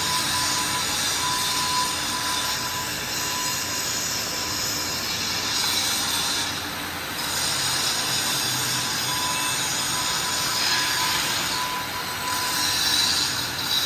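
Steady, loud industrial workshop noise with a high metallic screech.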